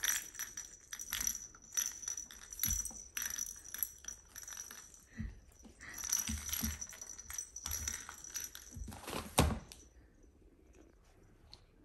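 A jingling cat toy rattling and clinking in irregular bursts of small knocks. The jingling stops about ten seconds in.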